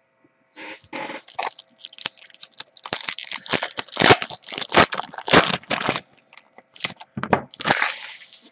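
A trading card pack and its mini box being opened: the wrapper crinkles and tears in a dense run of crackles from about three to six seconds in, with another short burst near the end.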